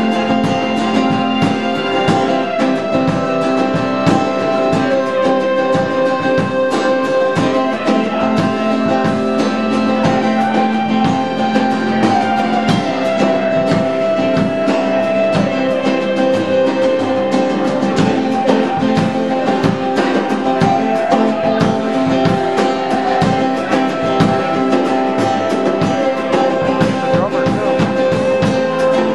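A band playing an instrumental passage: guitars over a drum kit, with long held melody notes that change every few seconds.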